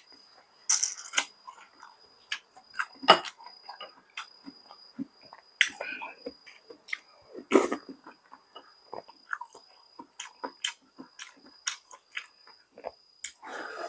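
Close-miked chewing and mouth sounds of someone eating, with scattered sharp clicks and taps at irregular intervals.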